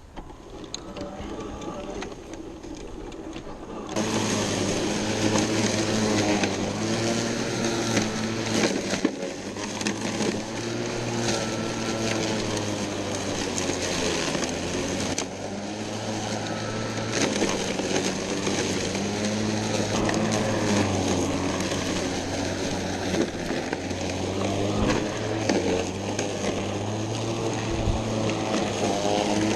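Kobalt 80-volt cordless electric lawn mower running, a steady motor-and-blade hum whose pitch dips and recovers. It is fainter for the first few seconds and much louder from about four seconds in.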